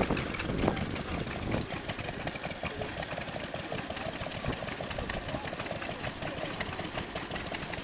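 Small vintage single-cylinder stationary engines running steadily, with a rapid, even beat of firing knocks; one drives a grain mill by a flat belt and another drives a water pump.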